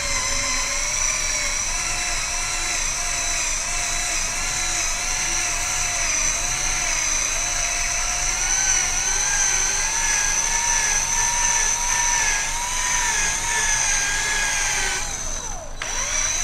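A 20V cordless drill spinning a foam polishing pad against a scooter's painted body panel, its motor whining steadily with a slightly wavering pitch. Near the end the motor briefly winds down and then speeds back up.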